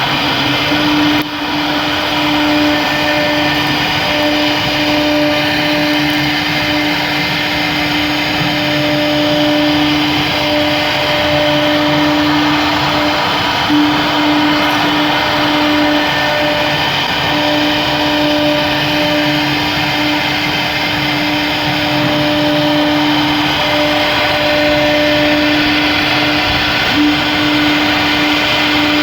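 CNC router spindle running at a steady high pitch while milling a thick black HDPE (high-density polyethylene) plastic sheet, with a steady rushing noise from the cut. Its loudness dips briefly about a second in.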